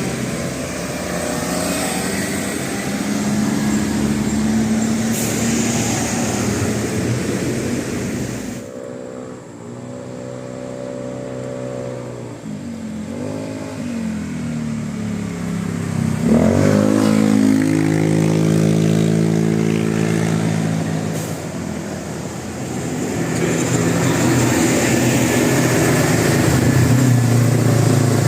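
Road traffic with a large vehicle passing close, most likely a bus. Its engine runs at steady revs, rises and falls briefly, then revs up sharply about halfway through.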